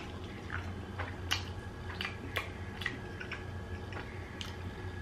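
A man chewing a mouthful of pasta: scattered soft mouth clicks and smacks over a steady low hum.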